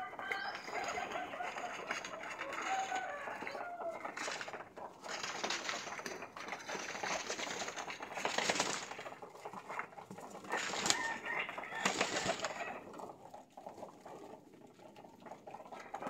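Flock of domestic pigeons cooing over a busy patter of clicks and scuffles as they feed, with a few louder rustling bursts in the second half.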